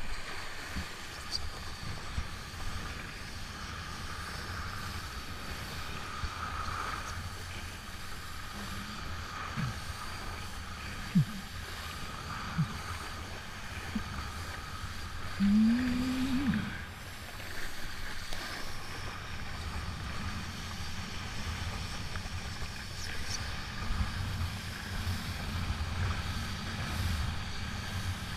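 Steady wind rumble buffeting the microphone over open water, with a few short gliding cries in the middle.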